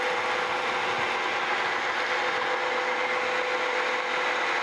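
Vertical milling machine running, its end mill cutting along the end of a clamped metal plate to square it. A steady whir with a constant hum tone.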